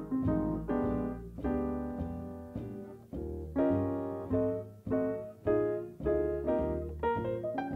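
Slow solo piano music: chords struck about once or twice a second, each left to ring and fade, over low bass notes.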